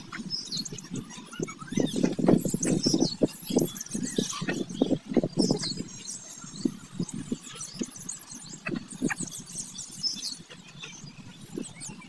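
Small birds chirping high and repeatedly, with a run of short, low, rapid sounds, loudest about two to six seconds in, from the chickens close by.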